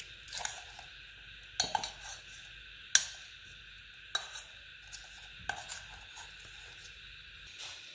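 A steel spoon stirring a crumbly flour-and-salt dough in a stainless steel bowl, clinking and scraping against the bowl's sides at irregular intervals about once a second, loudest about three seconds in.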